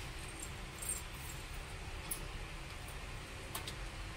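Steady low rumble of a pan of detergent water heating on a gas burner, with a few faint scattered ticks.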